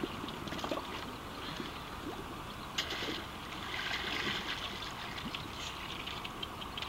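Water splashing and trickling as a wicker basket is lifted out of shallow water, with water pouring from it most strongly about four seconds in, and scattered small clicks and splashes.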